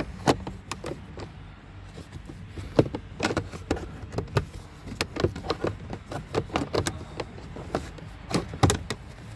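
Plastic clicks, knocks and scraping as the old cabin air filter is worked loose and slid out of its plastic housing in a Kia Optima, with a few sharper knocks, the loudest near the end.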